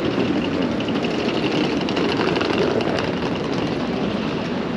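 Steady city street noise, mostly passing traffic.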